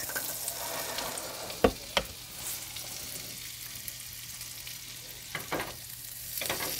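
A pat of butter melting and sizzling in a hot frying pan, the hiss easing off mid-way and picking up again near the end. A couple of sharp clicks about two seconds in, and two fainter ones later.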